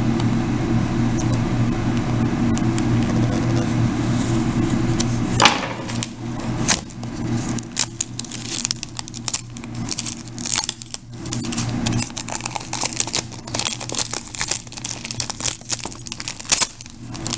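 A steady low hum, then from about five seconds in the sharp, irregular crackling of shrink-wrap plastic film being torn and peeled off a DVD case by hand.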